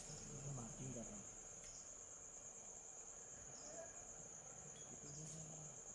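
Insects droning in a steady high-pitched hum, with faint voices murmuring now and then underneath.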